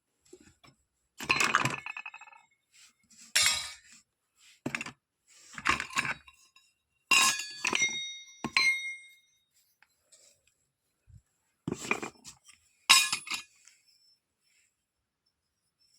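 Small toy kitchenware pieces clinking and clattering as they are handled and set down. There are about eight separate bursts, and those around the middle carry a brief ringing tone.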